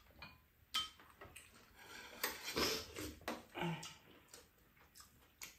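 Chopsticks and spoons clinking and tapping against bowls, a frying pan and a metal tray during a meal, in scattered sharp clicks. A short breathy sound comes about halfway through.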